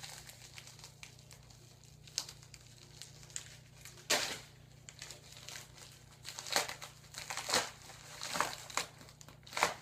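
A UPS shipping envelope crinkling and rustling in irregular bursts as it is handled and opened, the loudest burst about four seconds in.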